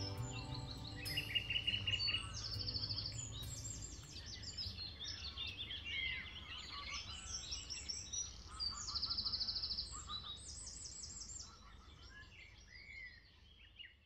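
Several songbirds singing together, with many chirps, whistles and a few rapid trills, over a steady low rumble. The last notes of an acoustic guitar die away in the first moment, and the whole sound fades out near the end.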